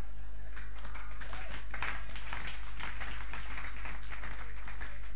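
A congregation clapping: a dense, irregular patter of hand claps, over a steady low electrical hum.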